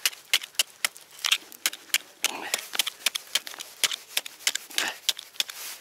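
Thin, newly formed ice over a frozen-over fishing hole being chipped and broken open by hand: sharp, irregular knocks, about three or four a second, mixed with the crunch of breaking ice.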